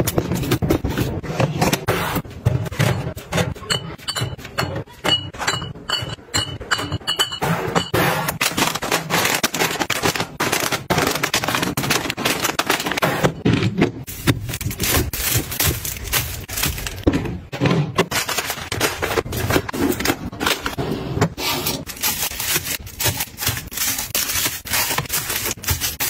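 Close-up handling of packaging and household items: plastic crinkling and rustling, items scraped, tapped and set down with short clicks, knocks and clinks. A faint run of short high beeps sounds about four seconds in.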